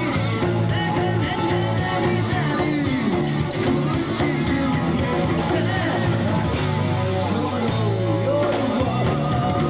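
Live rock band playing: electric guitar, bass and drums, with a singer's vocals over them.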